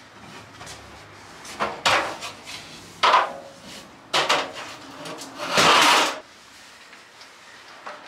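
Metal stepladder clanking and knocking as it is carried in and set up, several separate clunks followed by a louder, longer scrape or rattle about three-quarters of the way through.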